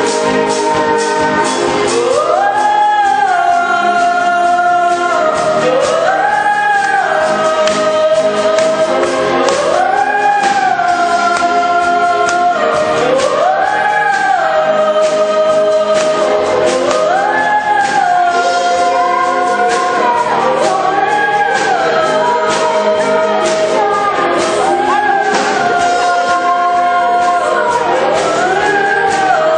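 Choir singing a pop song over instrumental backing, a sung phrase that swoops up and then holds, repeating about every three to four seconds.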